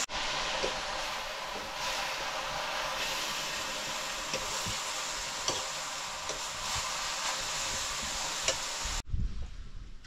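Food sizzling in a hot pan: a steady frying hiss with a few sharp clicks of a stirring utensil. It cuts off abruptly near the end, giving way to a low rumble.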